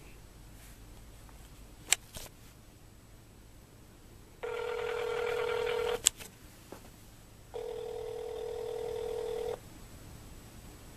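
Outgoing-call ringback tone from a smartphone's loudspeaker: two long steady rings, each about one and a half to two seconds, with a pause of about a second and a half between them. A sharp click comes about two seconds in, and another just after the first ring.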